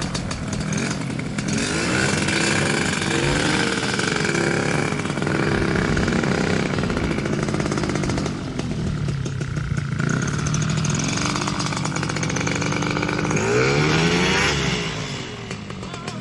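Paramotor engine running with a buzzing, chainsaw-like note. Its pitch rises and falls several times as it is throttled, with the biggest swing near the end.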